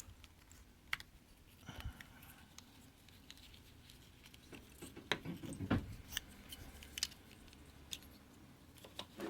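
Sparse small clicks, taps and scrapes of a plastic key fob being pried apart and handled with a metal key, with a short cluster of clicks a little after five seconds in.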